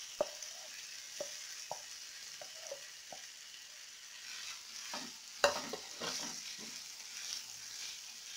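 Hot oil sizzling in a frying pan with green peas and spices as mashed boiled banana is scraped in from a plastic plate with a wooden spatula and stirred. Scattered knocks and scrapes of the spatula, the sharpest about five and a half seconds in.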